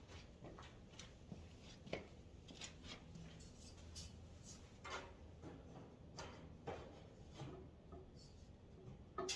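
Faint, scattered clicks and knocks of tool rack parts being handled and fitted together as the top section goes on, the sharpest about two seconds in and again near the end.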